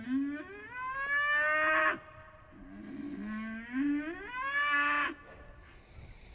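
Cattle bellowing: two long, loud moos, each about two seconds, both rising in pitch; the second call ends about five seconds in. The owners take the calling to mean he doesn't like being separated from the others.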